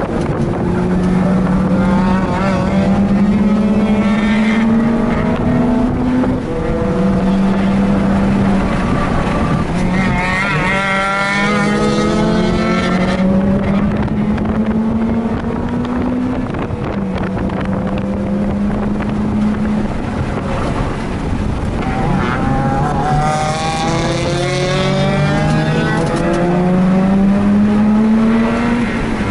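Mazda RX-8's twin-rotor rotary engine pulling hard on track, its pitch climbing and dropping back about three times, with wind noise over the microphone.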